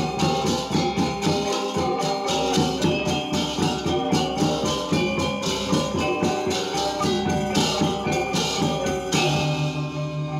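Balinese gamelan gong ensemble playing: bronze metallophones and gongs struck in fast, dense, rhythmic patterns. About nine seconds in, the busy playing thins and a steady low tone comes in.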